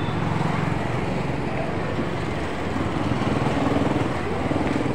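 Street traffic noise with vehicle engines running, and indistinct voices nearby.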